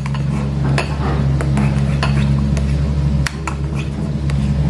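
A spoon stirring thick cake batter in a ceramic bowl, with scattered light clinks and scrapes against the bowl. Under it runs a steady low drone from road-repair machinery.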